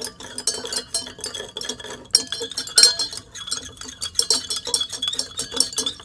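Stirrers clinking rapidly and irregularly against glass beakers of water as several substances are stirred in to dissolve, with a faint glassy ring.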